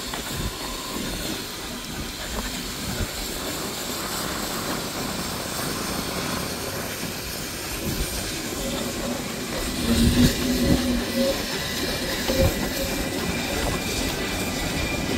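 Narrow-gauge steam locomotive hauling coaches slowly over a street level crossing, wheels clattering on the rails with some steam hiss. The knocks are heaviest about ten seconds in, as the engine passes close by.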